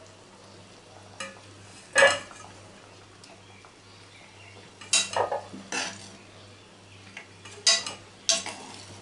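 Steel ladle scraping and knocking against a granite-coated frying pan while scooping steamed potatoes and cauliflower out of their water. There are a handful of sharp clattering strokes, the loudest about two seconds in and a quick cluster around the middle, over a faint steady hum.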